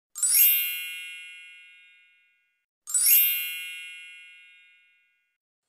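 A bright, bell-like chime sound effect, played twice about three seconds apart, each note ringing out and fading away over about two seconds.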